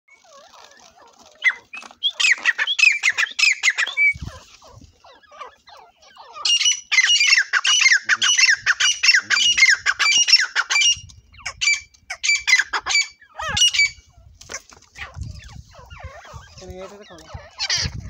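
Francolin (teetar) calling: long runs of rapid, shrill repeated notes. The loudest run comes from about six and a half to eleven seconds in, with a shorter run earlier and a few brief ones after.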